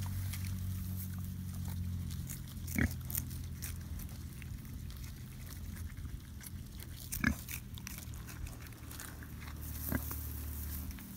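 Pigs chewing and rooting in chard and grass, with small crunching clicks and three short grunts about three, seven and ten seconds in, over a steady low hum.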